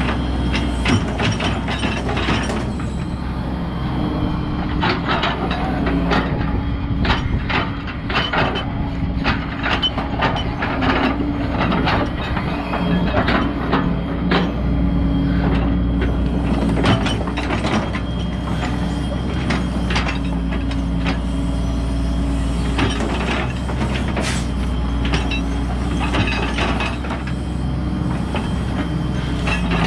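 Hydraulic excavator with its diesel engine running steadily, and frequent clanks, knocks and scrapes as the steel bucket digs through mud and stones.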